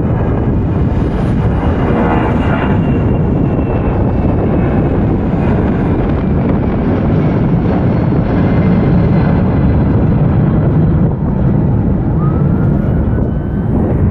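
Twin-engine jet airliner climbing out after takeoff: a loud, steady rumble of its engines, with a faint whine that slowly falls in pitch.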